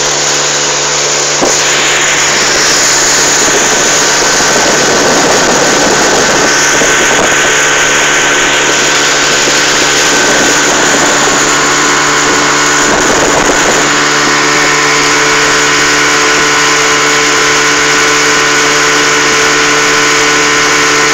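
Small motorboat's engine running steadily at cruising speed, with water rushing along the hull and wind. The engine note gets slightly louder about a second and a half in.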